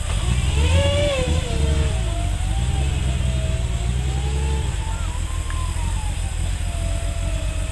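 Small pickup truck's engine revving under load as it climbs a muddy forest off-road trail, its pitch rising and falling; the low rumble is heaviest in the first few seconds, then eases.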